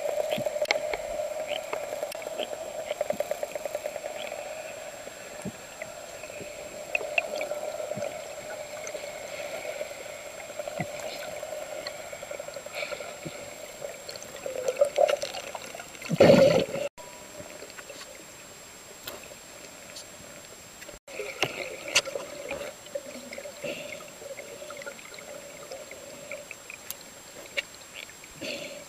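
Underwater sound during a freedive at sea: water noise with many scattered small clicks over a steady drone. There is a loud rushing burst about halfway through, and the sound cuts out briefly twice.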